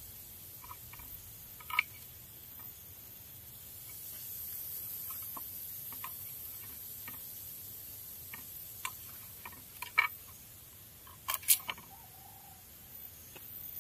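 Scattered light clicks and taps of a knife and fingers on a wooden cutting board during hand food preparation, with a few sharper knocks about 2 seconds in, around 10 seconds, and a quick pair around 11 and a half seconds.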